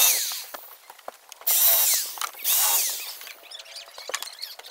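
Electric drill run in three short bursts, its whine falling as it slows after each one, cutting a recess into a wooden beam so a 3/8-inch bolt head can be sunk below the surface. The bit is a homemade one ground from a chisel.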